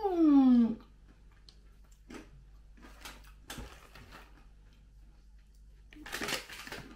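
A woman's closed-mouth "mmm" of delight, rising then falling in pitch, as she tastes honey butter almonds, followed by soft chewing clicks. About 6 s in comes a short burst of rustling from the plastic snack packet, and a second rising-then-falling "mmm" ends the stretch.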